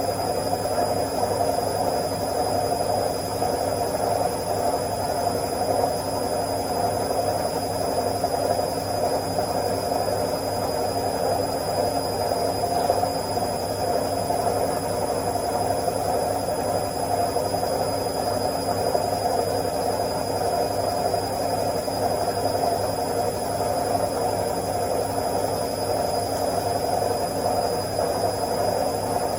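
Washing machine on its spin cycle: a steady whirring drum and motor hum with a constant rushing noise.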